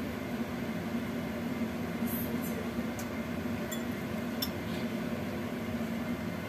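Steady hum and hiss of fish steaming in a glass-lidded wok over a lit gas burner, with a few faint light clicks about two to four and a half seconds in.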